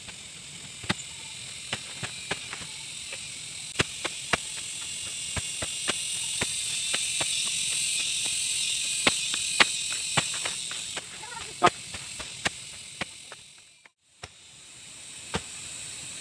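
Hoe blade chopping into soil over and over, a sharp hit every second or so, over a steady high chorus of insects. The sound drops out briefly near the end, then the insects and the hoe strikes carry on.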